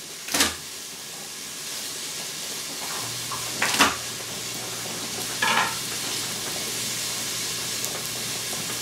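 Chicken pieces sizzling steadily as they brown in oil in an Instant Pot's inner pot, with two sharp knocks of a knife on a plastic cutting board, about half a second in and again about four seconds in. A low steady hum joins about three seconds in.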